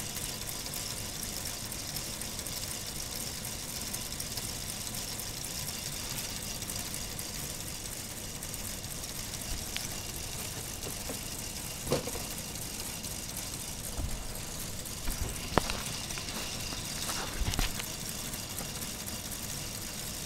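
Motor-driven K'nex plastic model V8 engine running steadily, its cranks, pistons and gears turning with an even mechanical whirr. A few sharp knocks come in the second half.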